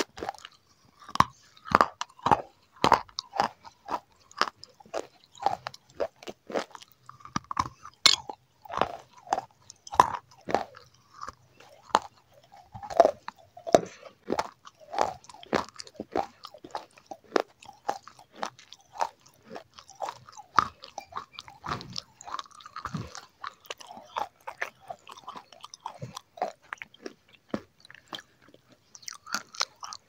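Close-miked bites and chewing of a crunchy food: a steady, irregular run of crisp crunches, a few a second.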